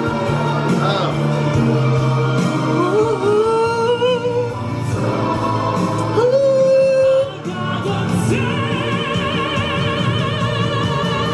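A male singer performing live over backing music: sliding, rising sung notes, then from about eight seconds in a high held note with a wide vibrato.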